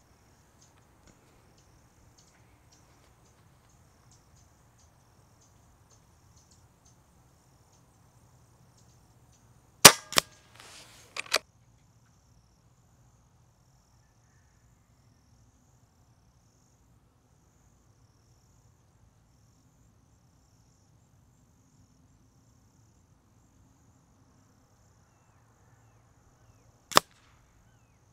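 Hatsan Flash Pup .22 PCP air rifle fired, heard through a microphone downrange at the 50-yard target: a sharp crack about ten seconds in, followed by a few fainter knocks over the next second and a half. Another sharp crack comes near the end.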